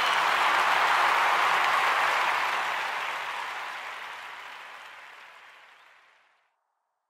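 Applause, a dense even clatter of many hands, fading away over about six seconds as a song ends.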